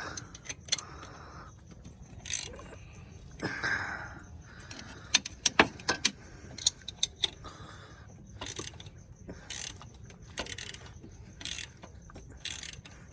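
Hand ratchet wrench turning the harmonic balancer installer tool's screw to press an ATI Super Damper onto the crankshaft: sharp metal clicks and clinks, with short ratcheting bursts about once a second in the second half.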